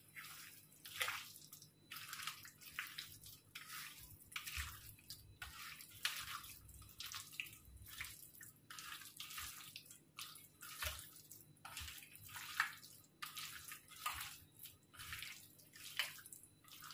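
A hand squishing chunks of raw chicken through a thick, wet yogurt-and-spice marinade in a steel bowl: faint, irregular squelches, one or two a second.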